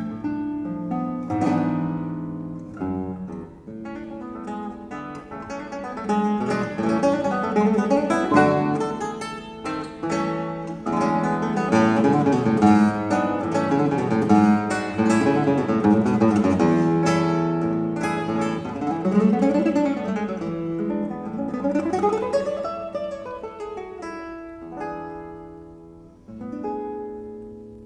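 Solo nylon-string classical guitar playing a fast passage of plucked notes, with quick scale runs sweeping up and down in the middle. It eases to quieter, sparser notes near the end.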